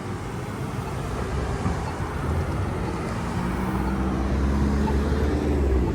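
Road traffic: a motor vehicle's engine running close by, a low hum that grows louder from about two seconds in.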